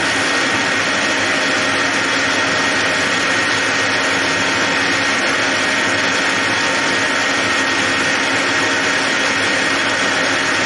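Metal lathe running while a boring bar cuts a recess inside a round metal workpiece: a loud, steady machining noise with a steady high tone through it.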